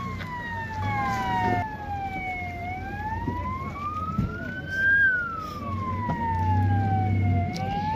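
Vehicle siren in a slow wail, its pitch sliding up and down about once every five seconds, over a low hum.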